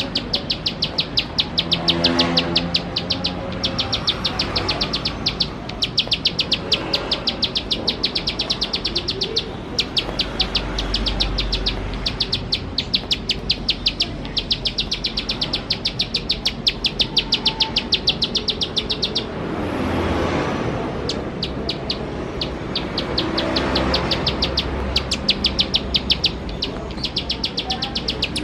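Plain prinia (ciblek sawah) calling in long runs of rapid, sharp clicking notes, about eight a second, broken by brief pauses every few seconds.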